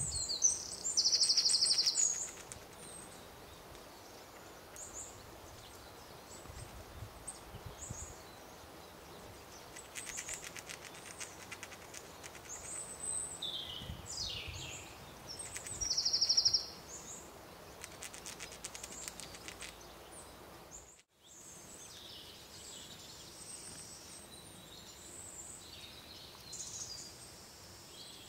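Small woodland birds calling and singing: thin, high chirps and short trills, with the loudest trills about a second in and again around sixteen seconds. The sound drops out for a moment about two-thirds of the way through.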